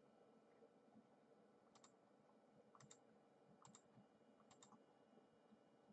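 Four faint double clicks about a second apart: the press and release of the button on the iMac G3's round USB 'hockey puck' mouse, set against quiet room hum.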